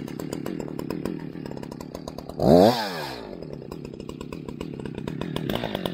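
Echo CS-620PW two-stroke chainsaw idling just after starting, with one quick blip of the throttle, the engine rising and falling in pitch, about two and a half seconds in.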